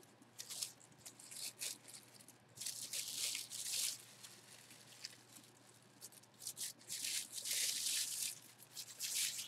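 Tissue paper crinkling and rustling in irregular bursts as a hand unwraps a baseball from it and crumples the paper, with the longest bursts about three seconds in and again near the end.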